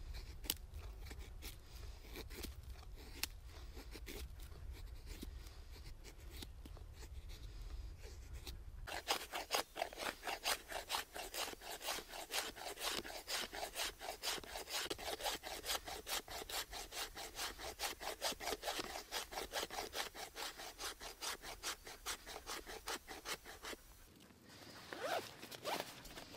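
A hand saw cutting through wood with quick, even back-and-forth strokes. The sawing starts about a third of the way in and stops shortly before the end, after a stretch of low rumble and a few light knocks.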